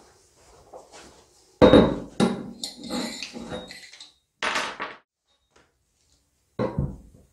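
Chrome motorcycle fork tubes knocking and clattering on a wooden workbench as they are handled. There are three knocks: one about a second and a half in, the loudest, with further clatter after it; one around four and a half seconds; and one near the end.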